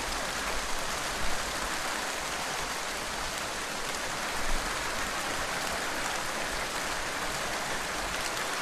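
Rain sound effect playing back: a steady hiss of rainfall.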